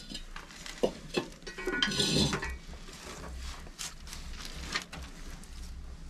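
Metal clinking and scraping at the open firebox of a manual solid-fuel boiler as the fire is stoked: a few sharp clinks and a louder scrape about two seconds in.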